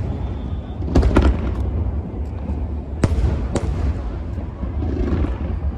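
Aerial fireworks shells bursting: sharp bangs about a second in, twice around three seconds in, and a softer pop near the end, over a continuous low rumble of the display.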